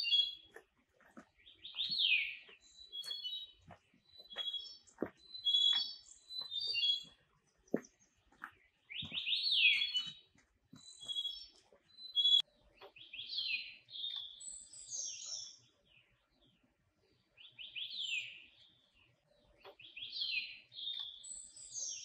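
A songbird singing short repeated phrases every second or two: clusters of high chirps alternating with quick falling slurred notes, with a few faint clicks in between.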